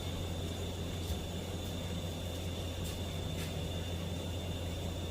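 A truck engine idling steadily, a constant low hum, with a few faint clicks.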